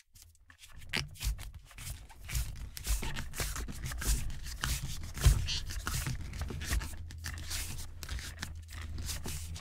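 Handling noise from hands working an aluminum telescoping boom pole: irregular rubbing and scraping with small knocks, over a low rumble.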